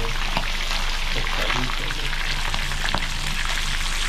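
Mojarras (small pan fish) frying in hot oil: a steady, dense sizzle with many small crackles and pops.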